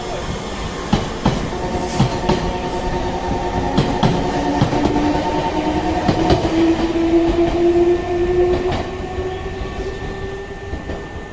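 Nankai local electric train pulling out of the station: wheels clacking over rail joints, with a motor whine that rises a little in pitch as it speeds up and fades near the end.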